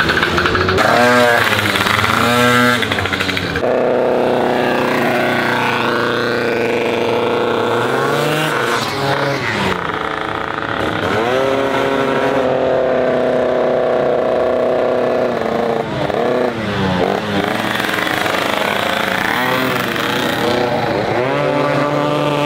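Tuned two-stroke racing scooter engine running at high revs. Its pitch drops and climbs back about five times as the throttle is shut and reopened.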